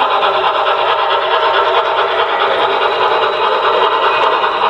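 Model train running along the layout track, a steady fast mechanical rattle of the running gear and wheels.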